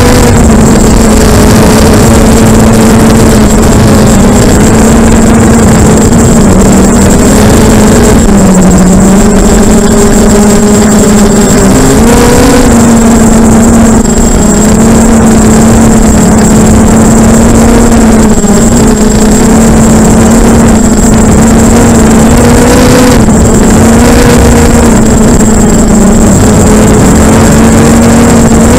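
FPV quadcopter's electric motors and propellers droning loud and steady, heard through the onboard camera's microphone, the pitch dipping and rising a little as the throttle changes.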